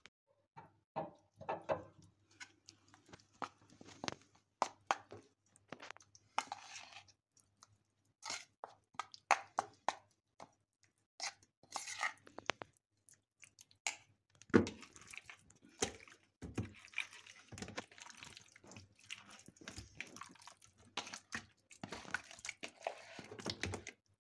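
A metal spoon stirring and scraping a wet spice paste of red pepper flakes and thyme in a stainless steel bowl, with irregular wet squelches and clicks of spoon against the bowl.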